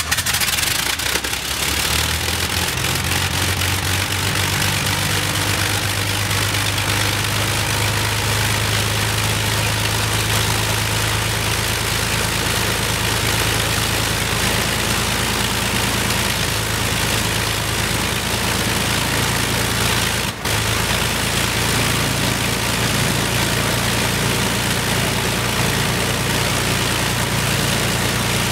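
Rolls-Royce Merlin V12 aero engine of an Avro Lancaster bomber on a ground engine test, catching unevenly at first and then settling within a couple of seconds into a steady low idle, with a momentary break about two-thirds of the way through.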